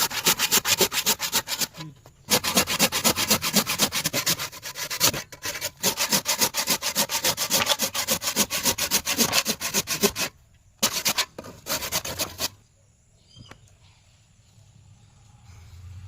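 Wood being rubbed with an abrasive, like hand sanding: fast, even strokes, about ten a second, with a few short breaks. The strokes stop about twelve seconds in, leaving faint room sound.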